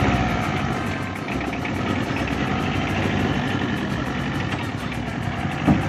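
Small pickup truck's engine running steadily at low revs. A brief thump near the end.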